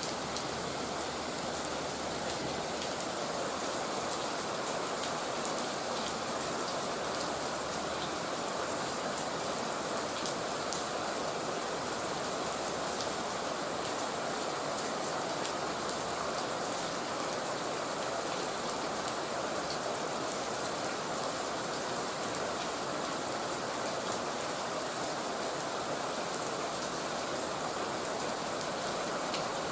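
Heavy rain falling steadily, a dense even hiss with many small drop ticks pattering on surfaces.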